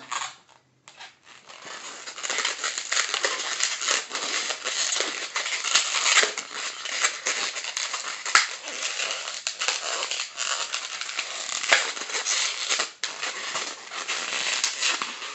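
Latex 260 twisting balloons being squeezed and twisted by hand, their small tight bubbles rubbing against each other and the fingers in a steady crackling, with many small sharp clicks.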